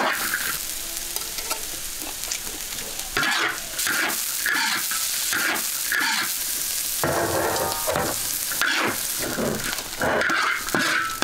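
Spatula scraping and tossing a chopped meat and green onion filling around a large iron wok, over a steady sizzle of frying. The scrape strokes come in a loose rhythm of roughly one to two a second.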